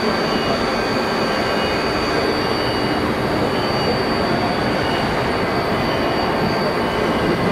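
Hydraulic power unit of a column hydraulic press running: its electric motor and hydraulic pump give a steady whirring noise with a constant thin high-pitched whine.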